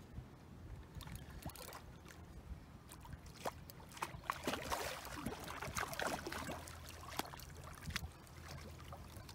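Water splashing and sloshing in irregular bursts with small knocks, as a small hooked fish is brought in and landed at the bank; the splashing is busiest in the middle.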